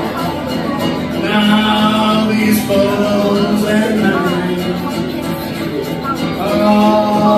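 A man singing a song to his own acoustic guitar accompaniment. The voice comes in sung phrases, with a gap of about two seconds past the middle where only the guitar plays before the voice returns near the end.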